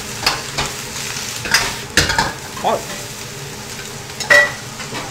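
Shredded cabbage sizzling as it is stir-fried in an iron wok, with a metal wok ladle scraping and clanking against the pan several times; the loudest is a short ringing clank about four seconds in.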